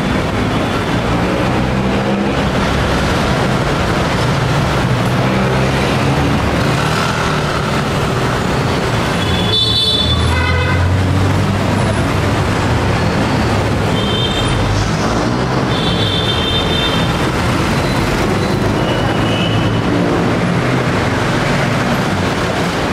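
Busy street traffic: cars, motorcycles and jeepneys running past at close range, with a steady engine hum. A few short high tones cut in over it, about ten seconds in and again between about fourteen and twenty seconds.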